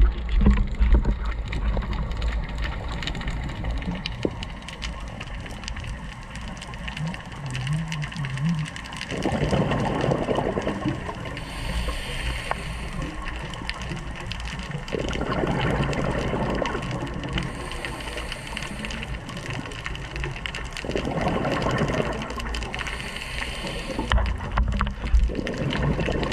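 Scuba diver breathing through a regulator underwater: a burst of exhaled bubbles about every six seconds, each followed by a thinner hiss, over a steady low rumble.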